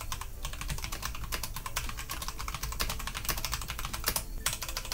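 Fast typing on a HyperX Alloy FPS mechanical keyboard with linear Kailh Silver Speed switches: a dense, steady run of key clacks, with a brief break about four seconds in.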